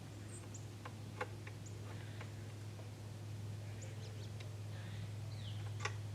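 A few faint clicks as the rifle's sight is turned a click at a time with an adjusting tool, over a steady low hum. Small birds give short, high chirps, one of them falling in pitch near the end.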